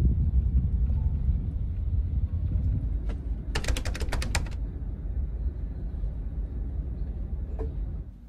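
Low rumble of a Scania Astromega double-decker bus driving slowly, heard from the upper deck. About halfway through comes a quick run of roughly ten sharp clicks lasting about a second.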